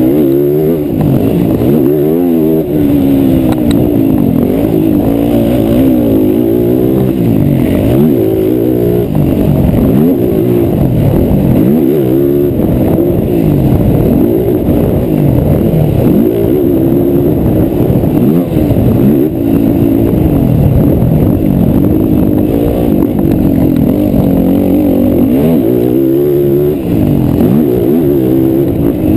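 Race quad engines revving hard, their pitch rising and falling over and over with throttle and gear changes, several engines overlapping.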